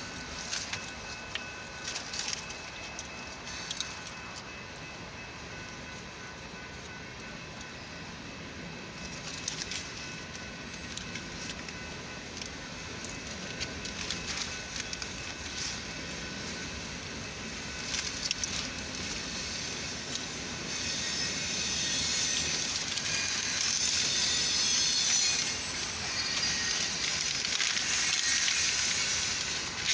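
Freight train cars rolling past a grade crossing, heard from inside a stopped car: a steady rumble with frequent clicks of the wheels over the rails. A high hissing, grinding noise grows louder after about twenty seconds.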